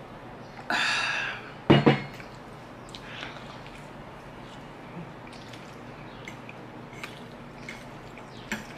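A gulp from a glass mug of iced drink, then the heavy glass mug set down on a wooden tabletop with two sharp knocks just under two seconds in. After that, soft chewing and small clicks of a metal fork on a ceramic plate.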